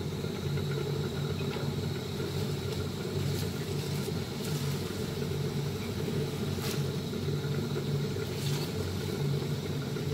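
Stove burner flame running steadily under an empty wok, a low rumble with a few faint clicks.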